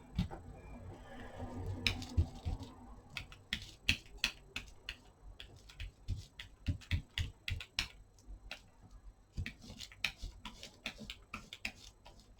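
Irregular series of sharp clicks and taps, several a second, with no steady rhythm.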